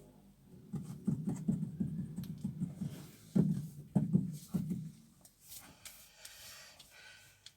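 Stifled, closed-mouth laughter: a quick run of short low voiced pulses, several a second, from about a second in, then a breathy hiss near the end.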